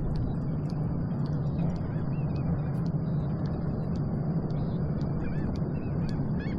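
Steady outdoor rumble of wind and water with a low hum, over which birds call in short, repeated arching notes, a few at first and then a quick run of them near the end.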